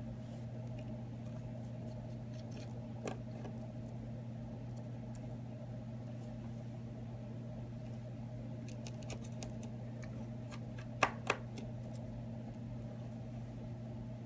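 Faint scattered clicks and ticks of a precision screwdriver backing small screws out of an iPhone 6, with two sharper clicks about eleven seconds in, over a steady low hum.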